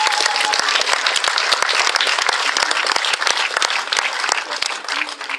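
Crowd applauding, a dense patter of many hands clapping that eases off near the end.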